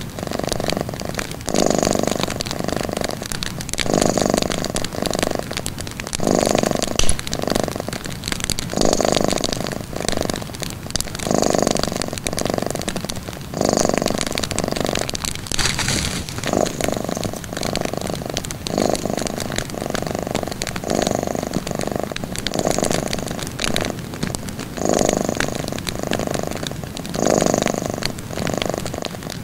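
Domestic cat purring steadily, in even swells about every two and a half seconds, each swell in two parts. Faint wood-fire crackling runs behind it.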